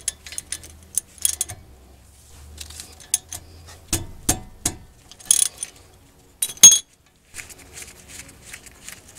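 Ratchet and socket clicking and metal clinking as a 19 mm brake caliper bolt is loosened, with a few sharper metal clanks a little past the middle.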